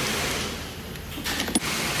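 Steady background hiss that fades away briefly, then a few light clicks near the end.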